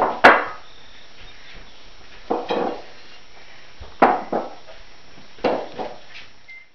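Dishes being set down on a wooden dining table: about four separate clacks a second or so apart, each with a short ring. The sound cuts off just before the end.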